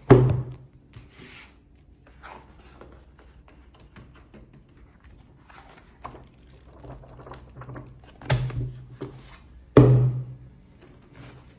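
Blank white cardboard and paper parts of an empty Blu-ray box-set mock-up being handled on a wooden table. A sharp knock of cardboard comes right at the start, then soft rustles as the pages of a booklet are flipped, and two more knocks of cardboard on the tabletop near the end.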